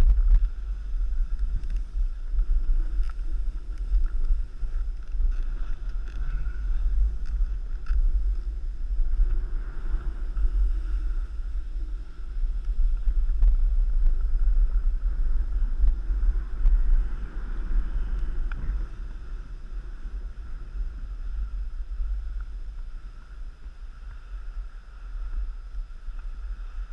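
Wind buffeting the camera's microphone in a gusty low rumble, over the steady hiss and scrape of a snowboard or skis sliding down a snowy slope. The rumble eases a little over the last several seconds.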